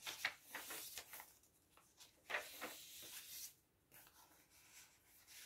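Paper pages of a handmade junk journal being turned and brushed by hand: rustling in the first second, another rustle about two seconds in that runs on as a short sliding hiss, then it goes quiet.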